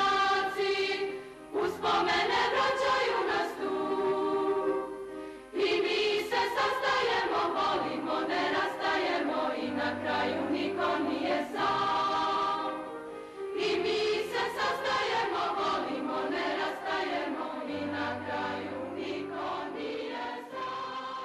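Choir singing a slow piece in long held phrases, with short breaks between them.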